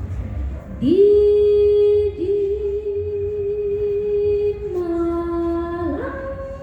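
A singer, unaccompanied, holding long sustained notes: she scoops up into a note about a second in and holds it with a slight vibrato. She steps down to a lower note near five seconds, then rises to a higher held note near the end.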